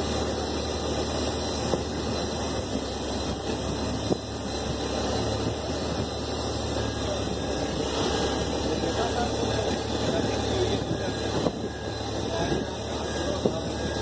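Steady mechanical hum and hiss from the Antonov An-225 while its hinged nose cargo door slowly lifts open, with a few faint clicks.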